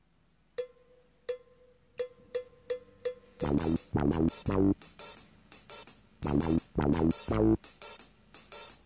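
Instrumental intro of a pop song: one note is struck about six times, then about three and a half seconds in the full band comes in on a strong, steady beat.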